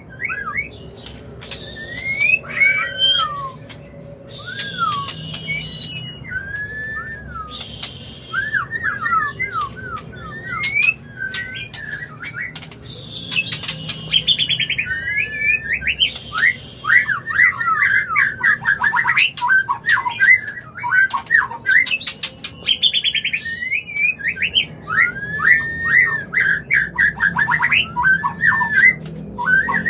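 White-rumped shama (murai batu) in breeding condition giving its mating song: a fast run of clear whistled notes that sweep up and down, broken by harsh raspy bursts and sharp clicks. This is the in-heat call of a shama ready to mate.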